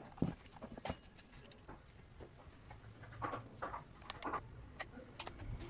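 Small clicks, knocks and scrapes of hand tools and metal parts being handled while a brush cutter's engine is taken apart. A sharp knock comes about a quarter second in, then scattered light clicks and a few short scraping rustles about three to four and a half seconds in.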